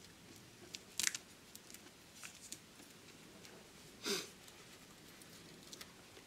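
Faint handling of a paper sheet of sticky dots as they are peeled off and pressed down onto a taped metal plate: light rustles and small clicks, with a short louder rustle about a second in and another about four seconds in.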